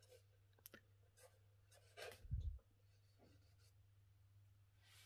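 Faint scratching of a drawing tool on paper while dark shadows are being shaded in, with a few small clicks and a soft knock about two seconds in, over a steady low hum.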